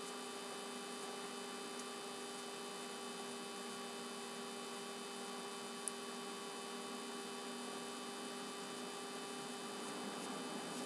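Steady electrical hum made of several constant tones over faint hiss, with a single tiny click about six seconds in.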